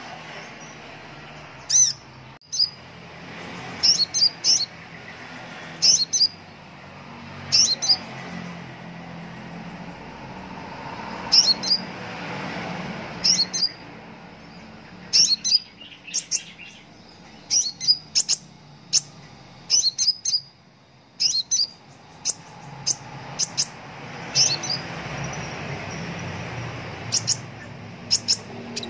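Van Hasselt's sunbird (kolibri ninja) calling: short, sharp, high chirps, singly or in quick clusters of two to four, repeated every second or two.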